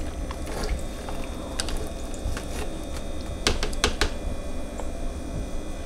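Wet in-shell boiled peanuts clicking and clattering against each other and a slotted spoon as they are stirred in a crock pot: scattered clicks, with a quick cluster of them a little past halfway.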